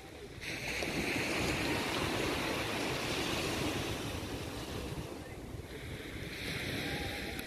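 Small waves of surf washing onto a sandy beach, a steady hiss that swells in about half a second in. Wind rumbles on the microphone underneath.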